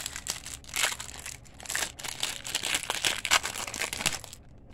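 Shiny wrapper of a 1992 Pinnacle Series 2 baseball card pack crinkling and tearing as it is opened by hand, a dense run of crackles that stops about four seconds in.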